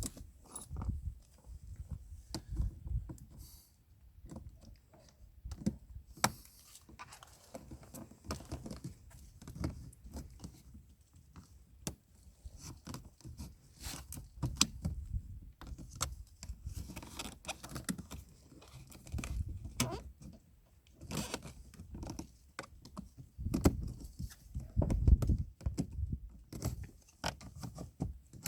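Hand tools and metal parts being handled: irregular clinks, light knocks and scrapes at an uneven pace, with a cluster of louder knocks near the end.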